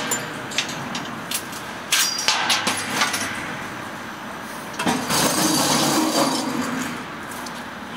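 Laser-cut 6 mm carbon steel parts clinking and knocking against the steel sheet as they are picked out by hand and set down on the machine. The sound starts as separate sharp clinks, then turns into a louder stretch of clatter about five seconds in.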